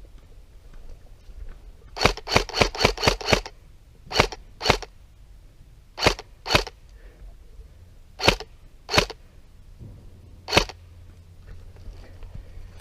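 Airsoft gun firing sharp single shots: a quick string of about seven, then three pairs and one last shot.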